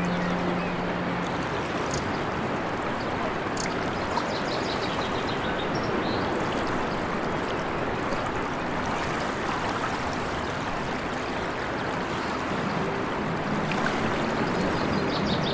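Steady rushing noise of running water, like a stream, with a few faint high chirps near the start and near the end.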